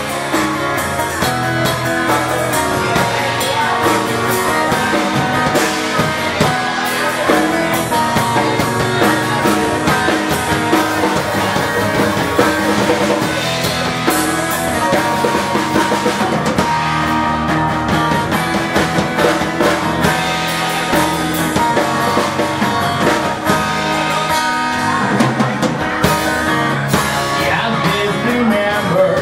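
Live band playing rock music: guitar and drum kit with a singing voice.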